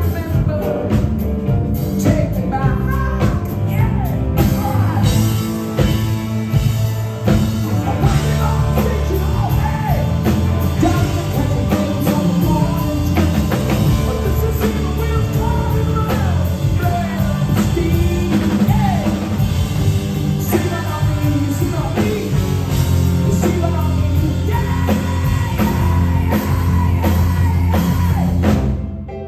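Live rock band playing with a male lead vocal over it. The music stops abruptly near the end.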